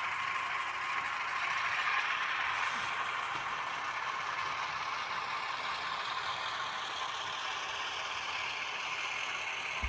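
N scale model diesel locomotive's ESU LokSound V5 micro decoder playing an EMD twin 567 prime mover sound through a tiny sugar-cube speaker, running steadily, thin and tinny, with the model's mechanism and wheels rattling on the track.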